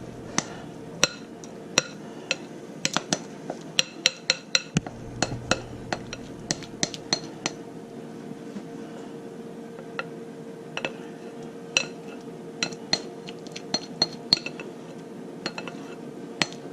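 A metal utensil clinking and tapping against a can and a casserole dish, in irregular sharp strikes, as condensed cream of chicken soup is scooped out and spread over chicken. A faint steady hum runs underneath.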